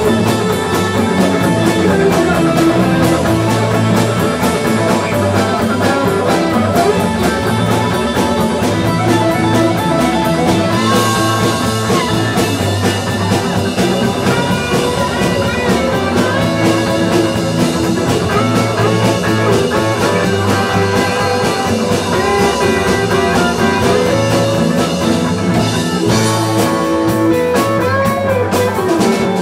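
Live rock band playing, with an electric guitar to the fore over drums.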